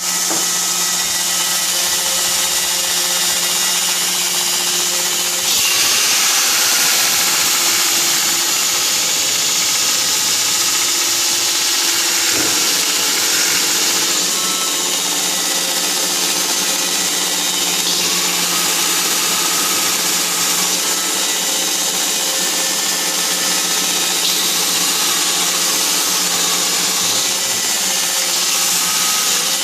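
Knifemaking belt grinder running: a steady motor hum under the hiss of the abrasive belt. The hiss grows louder about five and a half seconds in and stays that way.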